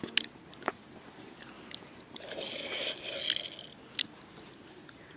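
A pigeon pecking food from a hand: sharp single pecks near the start and again about four seconds in, with a longer rustling, crunching stretch in between.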